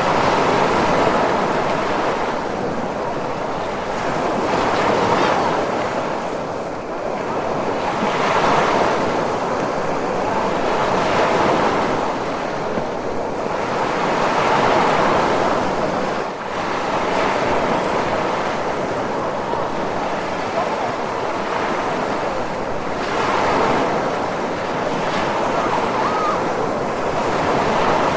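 Ocean waves washing in a continuous surf, swelling and easing roughly every three to four seconds.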